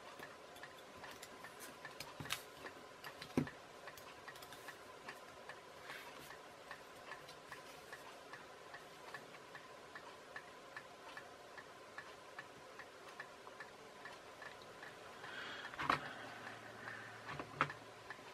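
Faint, evenly spaced ticking like a clock, over a faint steady hum, with a few louder scattered knocks.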